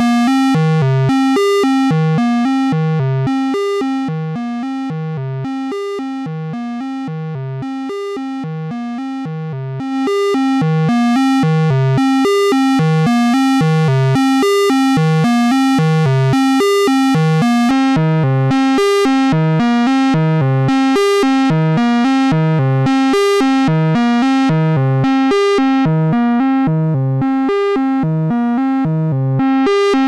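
Eurorack synthesizer voice playing a fast repeating sequence of pitched notes through the HS-111 Dystopia Distortion module. The grit and brightness shift as the module's and the filter's knobs are turned. About 4 seconds in it drops quieter and duller, and it comes back fuller and brighter about 10 seconds in.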